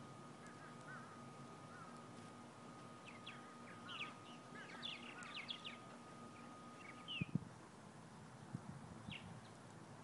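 Small songbirds chirping: a run of short, quick chirps a few seconds in, then a few scattered ones, over a faint steady high tone that stops about seven seconds in. A single knock about seven seconds in is the loudest sound.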